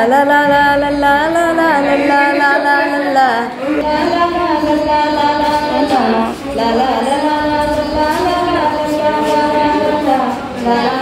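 Carnatic-style music: a single melody of long held notes that slide between pitches, in phrases a few seconds long.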